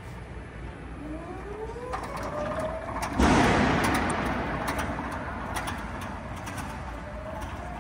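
Turret truck's electric motor whining, rising in pitch and then holding steady. About three seconds in there is a sudden loud rushing noise that fades over the next couple of seconds.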